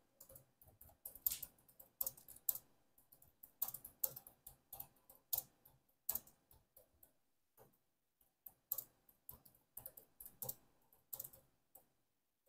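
Computer keyboard typing: quick, irregular keystroke clicks, pausing for about two seconds midway before the typing resumes.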